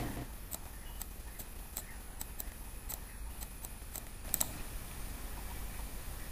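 Faint, irregular clicking of a computer mouse, about a dozen clicks, a pair of them a little louder near the middle, over a low steady hum.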